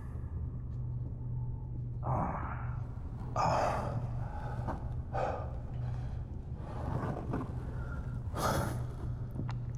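A person breathing hard under a cloth hood, with a gasping breath every second or two. A steady low hum runs underneath.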